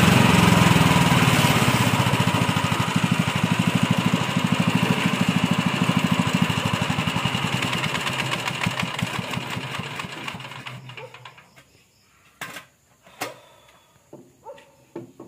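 Small petrol engine driving a compost grinding mill, switched off: its running breaks into slowing, pulsing beats that fade away over about ten seconds until it stops. A few faint knocks follow near the end.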